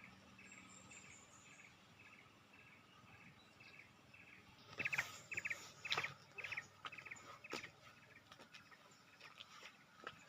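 Short trilled chirps repeating about twice a second, like a calling insect or small bird. From about halfway in, the chirps grow louder and are joined by sharp clicks and knocks.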